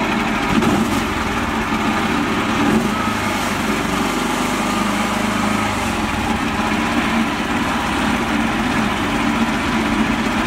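Massey Ferguson 360 tractor engine running steadily at idle, with no change in speed.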